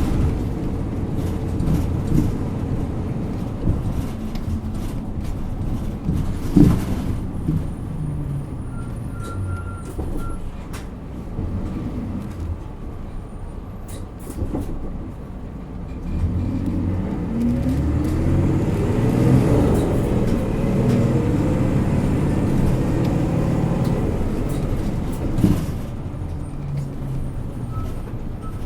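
Isuzu Erga Mio city bus's diesel engine running under way, quieter for a while and then, from about 16 seconds in, revving up and dropping back as the manual gearbox is shifted up through the gears under hard acceleration. A couple of sharp knocks come near the start and about six seconds in.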